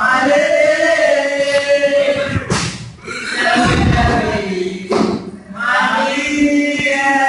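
Several young male voices singing together loudly in long, sliding held notes. The singing is broken by a short burst of noise about two and a half seconds in.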